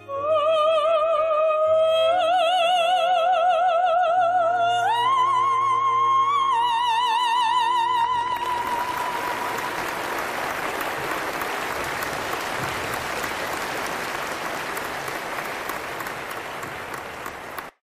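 A man's very high, sustained singing voice with wide vibrato over a string backing, leaping up about five seconds in to a long-held top note that closes the song. Audience applause follows and runs on until it cuts off suddenly near the end.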